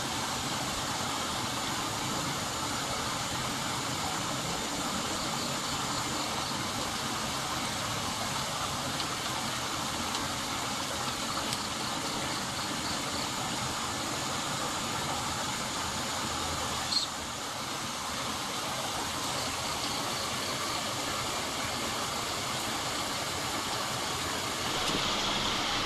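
Steady rushing background noise, with a single sharp click about seventeen seconds in.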